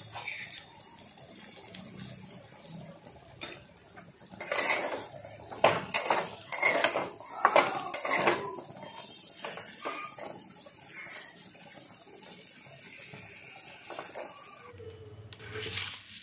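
Metal spatula scraping and clanking against a metal kadai as pointed gourd and potato pieces are stirred and fried, with a run of sharper clanks about four to eight seconds in.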